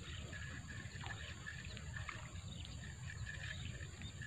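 Birds chirping in short repeated calls over a steady high insect drone and a low, steady rumble.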